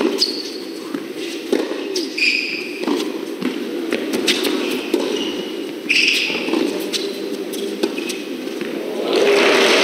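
Tennis rally: crisp racket-on-ball strikes with short grunts on some of the shots, over a hall's steady background hum. About nine seconds in, as the point ends, the crowd breaks into applause and cheering.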